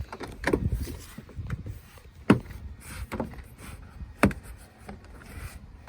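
Toyota Camry interior door panel being pressed onto the door, its clips snapping in: two sharp snaps about two seconds apart among lighter knocks and rustling of the panel.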